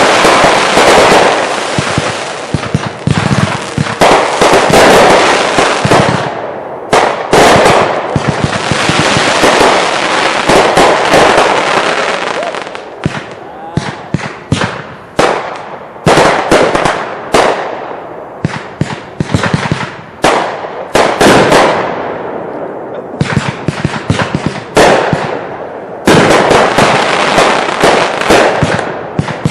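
Consumer fireworks finale: rapid overlapping shots and bursts with crackling, almost continuous for the first six seconds, then in volleys of sharp reports with brief lulls between them, dense again near the end.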